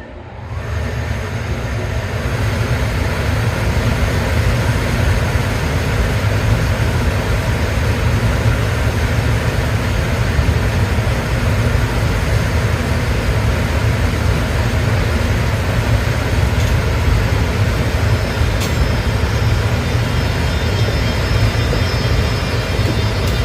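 EF510 electric locomotive running: a loud, steady low rumble with a rushing noise above it, swelling in over the first couple of seconds and then holding. A few faint high whining tones join it near the end.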